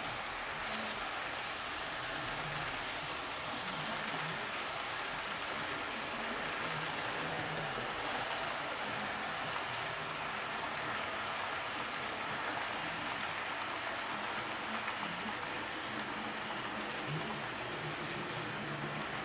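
Model freight trains running on a layout's track: a steady rolling rattle of small wheels on the rails, with no distinct knocks or changes.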